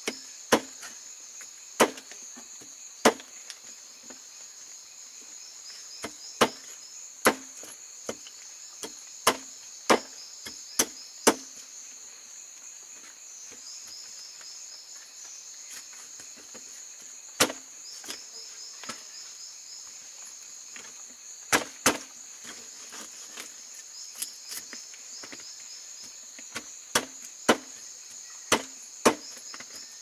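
Large machete-like knife chopping raw meat against a wooden board: irregular sharp chops, some in quick runs, with a pause of several seconds near the middle. Insects trill steadily and high-pitched behind.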